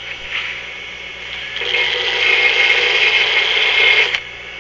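Power grinder grinding down the wall of a steel socket to make it thinner. The machine runs steadily, the grinding grows much louder about one and a half seconds in as the metal is pressed harder against the wheel, then stops abruptly near the end.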